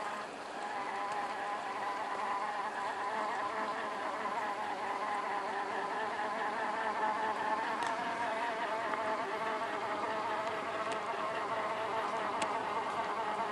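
Traxxas TRX-4 RC crawler's electric motor and geared drivetrain whining as it crawls slowly over rock, the pitch wavering up and down.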